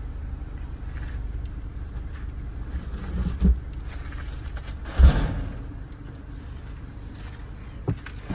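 Car engine idling, heard from inside the parked car's cabin, with a dull thump about three and a half seconds in and a louder bang about five seconds in.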